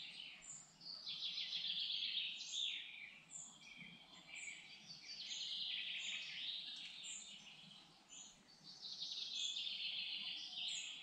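Songbirds singing: phrase after phrase of high chirping notes, each about a second long with brief gaps between.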